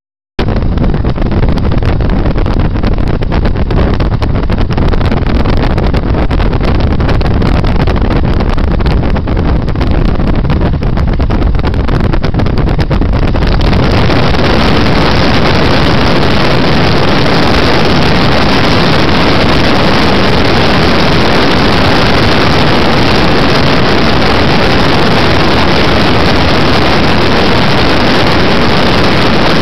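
Cessna 152's four-cylinder Lycoming engine and propeller running steadily and loud; about fourteen seconds in the sound grows brighter and fuller as power comes up for the takeoff roll.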